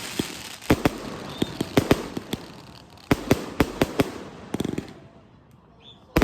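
Fireworks going off: many sharp bangs in quick, irregular succession, with a short lull about five seconds in before the bangs start again.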